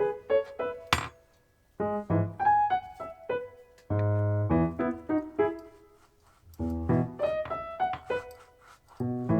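Background piano music playing short phrases of notes with brief pauses between them, with a sharp click about a second in.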